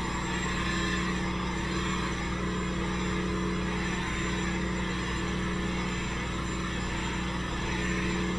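Vacuum cleaner running steadily with a high motor whine, just after spinning up to speed.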